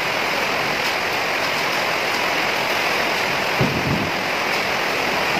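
Steady rushing hiss that holds at one level throughout, with a brief low bump about three and a half seconds in.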